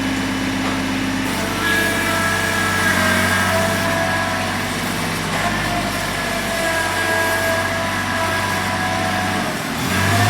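Kubota B21 backhoe loader's three-cylinder Kubota diesel running steadily, with a higher whine over it that wavers in pitch. Near the end the engine dips briefly, then its pitch starts to rise.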